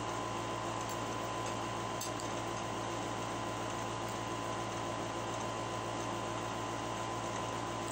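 Steady hum and hiss of a running appliance, with a faint constant high whine and no change in level. A few faint clicks about two seconds in.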